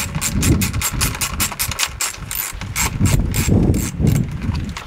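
Socket ratchet wrench clicking rapidly as a bolt on the pit bike's plastics is turned, about six to seven clicks a second, stopping near the end, with some low dull bumps underneath.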